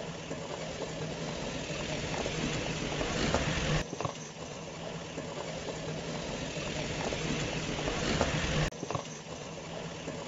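Battery-powered ride-on toy Jeep driving: its electric drive motors and gearboxes whirring with a steady low hum, plastic wheels rolling over asphalt. The sound breaks off abruptly twice, about four and nine seconds in.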